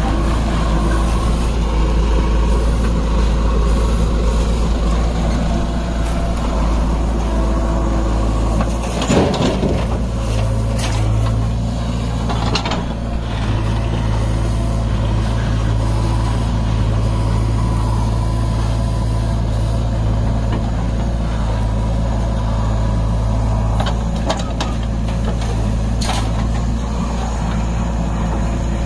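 Heavy diesel engine running steadily, its low note strengthening a little about ten seconds in, with several sharp clanks along the way.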